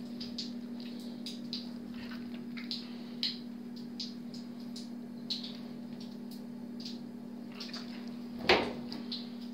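Handling noise as a large northern pike is held and turned on a boat floor by a gloved hand: light scattered clicks and rubbing over a steady low hum, with one louder thump near the end.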